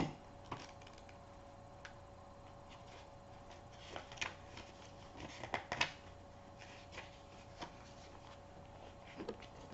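Pages of a small paperback booklet being leafed through by hand: faint, scattered papery flicks and rustles, most of them around the middle. A faint steady hum runs underneath.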